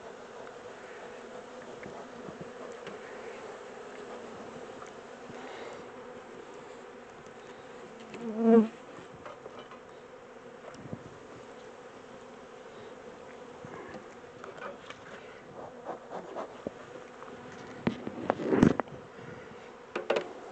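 Honey bees from a swarm buzzing steadily around an open hive. A bee swells louder past the microphone about eight seconds in, and a few knocks of hive equipment come near the end.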